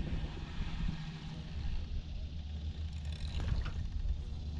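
A boat motor running with a steady low hum, with a few faint clicks about three and a half seconds in.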